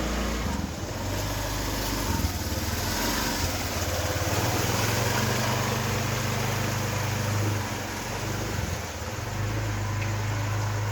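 Motor vehicle engine running steadily, a low hum that swells and eases over several seconds, over a constant hiss of background noise.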